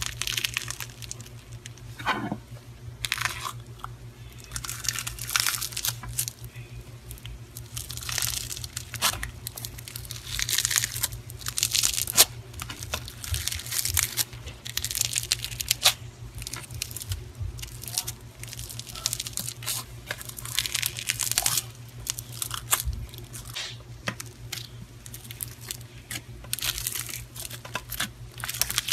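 Foam-bead slime being poked and squeezed: irregular crackling crunches of the beads, one every second or so, over a steady low hum.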